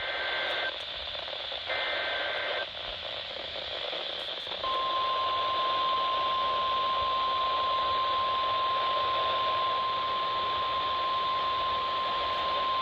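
NOAA Weather Radio broadcast of a required weekly test heard over radio static: two short warbling bursts of SAME digital header data, then about five seconds in a long, steady 1050 Hz warning alarm tone.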